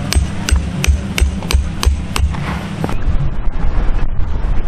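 Hammer blows in a quick, even rhythm, about three a second, that stop a little over two seconds in. Wind then buffets the microphone.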